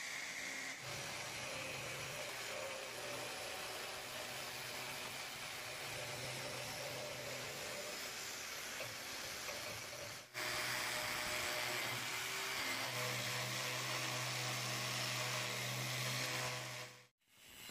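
An electric drill runs with a sanding or polishing bit against the inside of a steel axe head's eye: a steady motor hum under an abrasive hiss. It breaks off abruptly once midway, then drops out briefly near the end.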